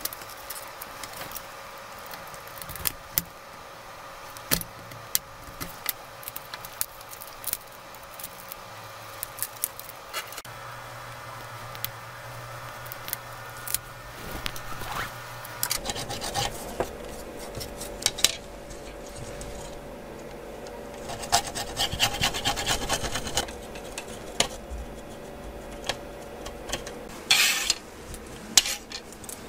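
Thin-bladed scraper rasping over a smartphone's mid-frame and cracked display glass, with many small irregular clicks and ticks, busier in the second half: the old display and its adhesive being worked off the frame.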